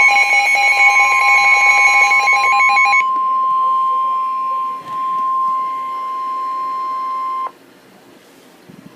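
Emergency Alert System attention tone: a loud, steady two-tone alarm that drops to a single tone about three seconds in, then cuts off abruptly about seven and a half seconds in.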